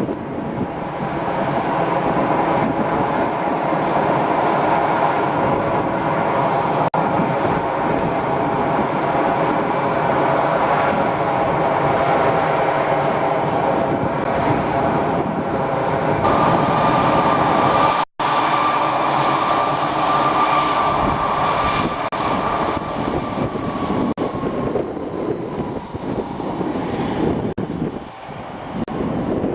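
Airbus A320 jet engines running loud at high thrust, typical of its takeoff run. A steady engine whine comes in about halfway through and slides down in pitch near the end as the aircraft moves past and away.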